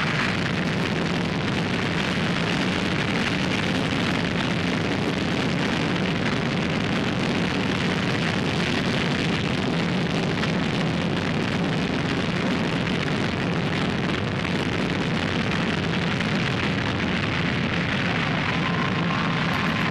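BA-810 hydrogen peroxide/kerosene liquid rocket engine in a static test firing, a steady, unbroken rush of noise at an even level throughout the burn.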